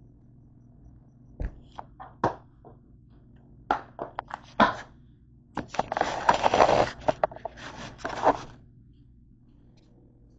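Handling noise close to the microphone: scattered knocks and scrapes, then about three seconds of dense rubbing and clattering in the middle.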